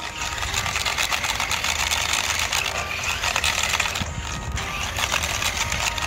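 Small electric motors of a Tumble Bee toy stunt remote-control car running, its plastic wheels rolling and grinding on asphalt, easing off briefly about four seconds in.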